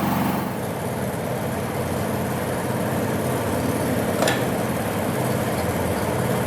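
An engine running steadily at idle, with one short sharp click about four seconds in.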